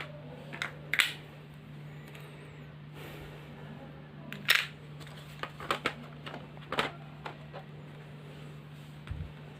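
Sharp plastic clicks and knocks as the Lenovo G480 laptop's bottom memory-compartment cover is put back in place, a dozen or so scattered clicks with the loudest about a second in and about four and a half seconds in, over a steady low hum.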